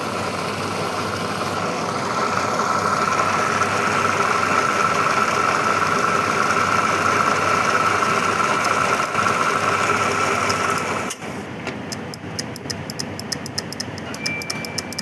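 Semi-automatic strapping machine running, its motor giving a steady hum with a high whine. About eleven seconds in the motor drops off, and a fast run of sharp ticks, about six a second, follows.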